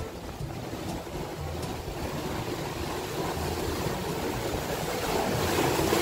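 Sea surf washing through a narrow gap between shore boulders, building near the end as a wave surges in and foams white.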